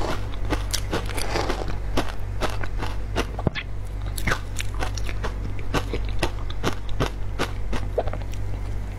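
Crunching and biting through frozen matcha ice, picked up close on a clip-on microphone: a dense, irregular run of sharp crisp crunches, several a second.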